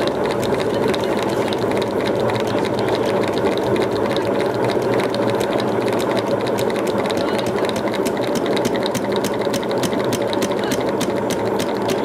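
Old top-loading washing machine running its motor and spinning tub: a loud, steady mechanical running with a regular ticking of about four a second that becomes clearer in the second half.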